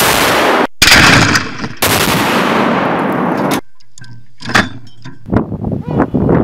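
ZIS-3 76 mm field guns firing blank salute rounds: three loud blasts in the first three and a half seconds, each with a long rolling echo and each cut off abruptly. Then a few sharp metallic clicks and knocks from the handling of a gun's breech, and another blast begins at the very end.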